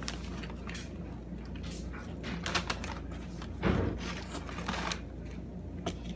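Small clicks, taps and rustles of food being handled at a table: tortilla chips and a paper food wrapper, with one louder rustle near the middle, over a steady low hum.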